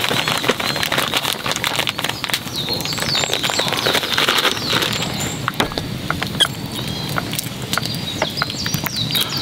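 Plastic bag of sugar crinkling as the sugar is shaken out into a small pot and the bag is then handled and folded, over the steady crackle of a wood campfire. Short high chirps of birds come through now and then.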